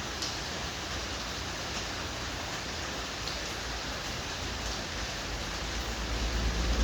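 Steady hiss of rain, with a few faint ticks and a low rumble that builds near the end.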